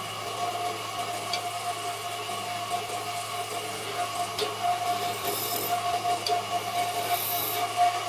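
Wood lathe running with a steady hum while a turning tool scrapes and cuts the spinning wood.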